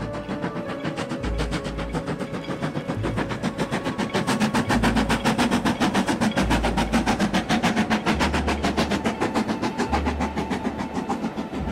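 Steam locomotive hauling a train across a viaduct, its exhaust chuffing in a fast, even beat that is loudest in the middle of the passage.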